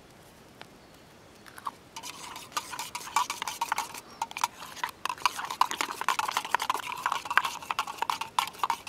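A metal spoon stirring a drink in a metal camping mug, clinking rapidly and repeatedly against the sides with a light ringing. The clinking starts about two seconds in, after a quiet stretch.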